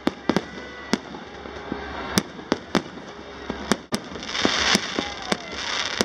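New Year's fireworks going off all around: a string of separate sharp bangs, one or two a second, over a steady rumble of more distant explosions, with a rushing crackling hiss swelling about four seconds in.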